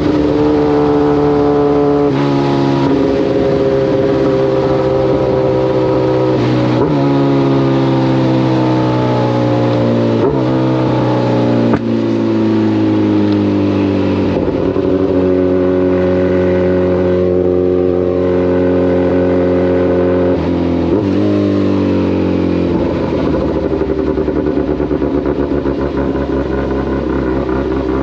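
Kawasaki ZX-14 sport bike's inline-four engine and exhaust running under way. The engine note changes pitch in steps every few seconds, as with gear changes. It turns rougher and lower near the end.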